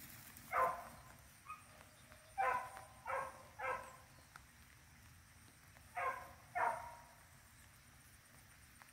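Beagle barking in short single barks: one under a second in, a faint yelp, then three barks in quick succession, and two more about six seconds in.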